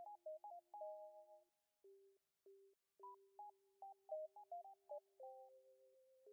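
Faint background music: a simple melody of quick, pure-sounding notes over a held low note. The melody drops out for about a second in the middle, leaving only a few low notes, then picks up again.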